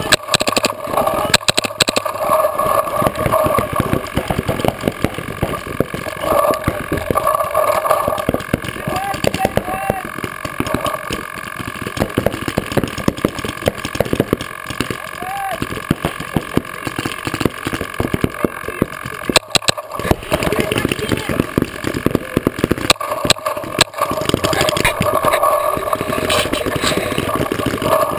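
Paintball markers firing in irregular strings of sharp cracks, the closest from the Mini marker that carries the camera on its barrel, with shouts in the background.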